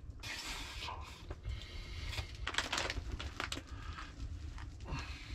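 Scattered light knocks, clicks and rustles from handling things at close range over a low steady rumble.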